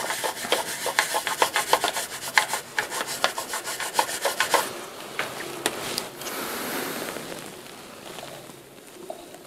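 A toothbrush scrubbing a thinner-wet motherboard: rapid scratchy bristle strokes, several a second. After about five seconds it gives way to a softer cloth rustle close to the microphone.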